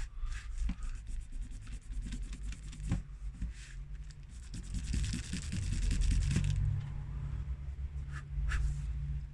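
Rubbing and scraping on a phone's frame as old adhesive is cleaned off it, with small clicks and handling knocks; the scrubbing grows denser and louder about five seconds in, easing off a second and a half later.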